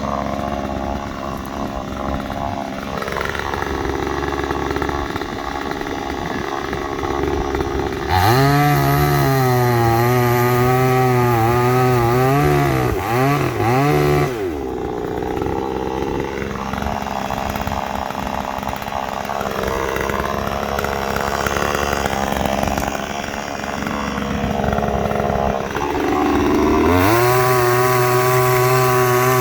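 Gas chainsaw running, with its engine dropping lower between cuts. It is revved to full throttle about eight seconds in for some six seconds, falls back, and revs up again near the end, cutting through dead tree wood.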